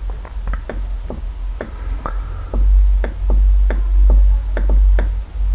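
Irregular light clicks of a computer mouse, about two or three a second, over a steady low hum that swells louder after about two and a half seconds.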